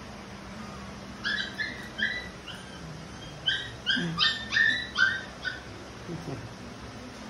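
A Labrador whining in a string of short, high-pitched whimpers, about a dozen, bunched between about one and five and a half seconds in.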